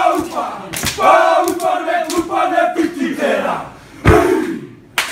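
A group of men chanting and shouting in unison, loud rhythmic shouts about two a second, ending in one sharp shout about four seconds in.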